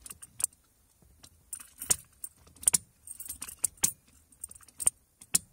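A series of sharp clicks, about seven spread unevenly with a few in small clusters, mixed with keys jangling: the ignition key is being turned and the B150 relay under the dash clicks as it switches on and off with the key positions.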